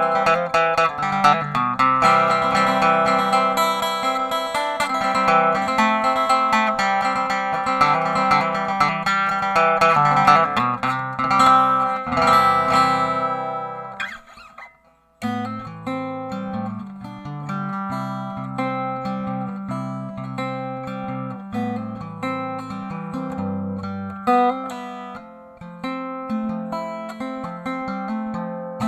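Kay K6878 Leader archtop acoustic guitar played through a Sunyin SP-1001 transducer pickup, ringing chords and notes. About halfway through the playing lets a chord ring out into a short pause, then starts again.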